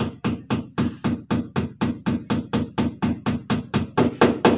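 A hand repeatedly slapping a plastic door sill trim panel to seat its push clips: an even run of sharp knocks, about four a second, getting a little louder toward the end.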